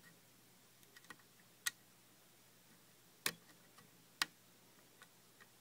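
Faint, scattered sharp clicks of a lock pick working the spool pins of a six-pin pin-tumbler lock during single-pin picking, the metal pick tapping the pins under tension. Three clicks stand out among several softer ones.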